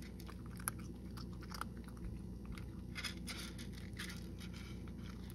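Cat chewing dry kibble: irregular crisp crunches, coming thickest about three seconds in.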